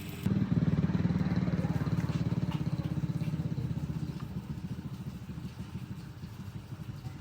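A small engine running with a fast, even beat. It starts abruptly just after the opening and fades gradually over the last few seconds.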